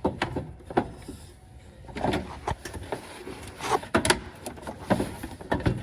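Irregular knocks, clunks and scrapes as a replacement radiator is worked down into a Ford Ranger pickup's engine bay and lined up.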